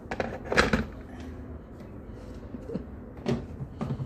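Knocks and clatter of things being handled on a kitchen counter: a quick burst of knocks about half a second in, then two more near the end as the blade lid is fitted onto a plastic personal-blender cup.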